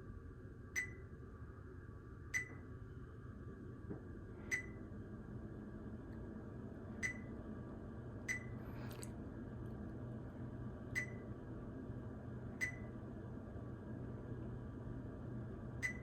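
Short sharp clicks, one every one to two and a half seconds at uneven spacing, from the Zoom H1essential recorder being handled and its controls pressed, picked up through its own microphone over a steady low hum.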